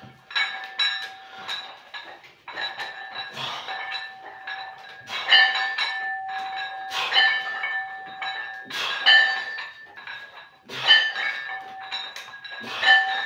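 Weight plates clinking and ringing on a barbell during lying triceps extensions. A sharp metallic clink comes with each rep, about every two seconds, and a ringing tone hangs on between them.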